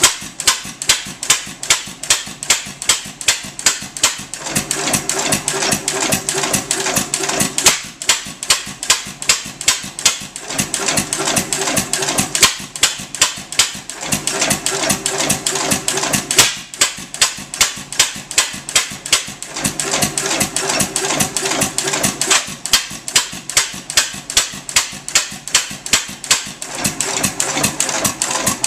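3 1/2 HP Gould Shapley & Muir hit-and-miss gas engine running: a fast, even clatter of sharp clicks, with a lower note coming in for two or three seconds at a time every few seconds.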